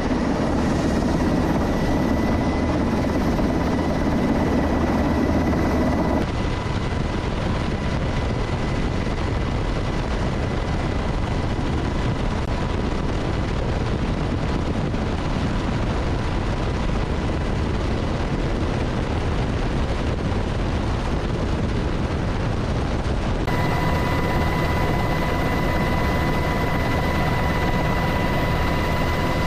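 Helicopter noise heard from aboard: a steady, dense rotor and engine din with a constant high whine. Its character changes abruptly about six seconds in and again near the end.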